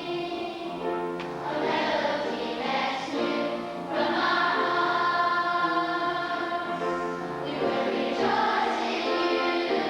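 A choir singing a sacred song with instrumental accompaniment, sustained notes changing every second or so.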